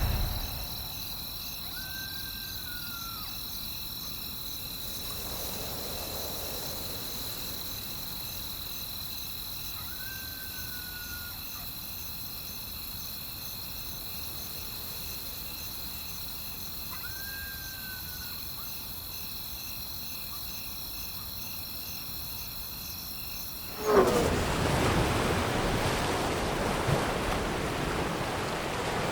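Nature ambience of insects trilling steadily in several high pitches, with a short whistle-like call that rises then falls, heard three times about seven or eight seconds apart. Near the end it cuts suddenly to louder surf and wind.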